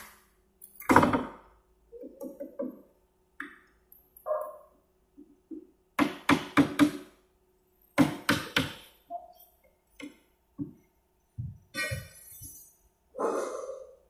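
Hammer driving nails into wooden pallet boards: sharp, irregular knocks, several in quick succession around the middle. A faint steady hum runs underneath.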